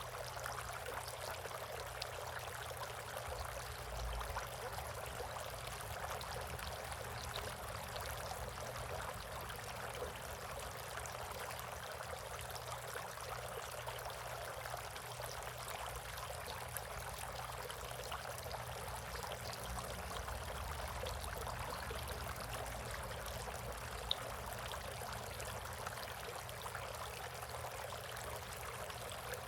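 Water running and trickling steadily into a bird bath, with one brief click about 24 seconds in.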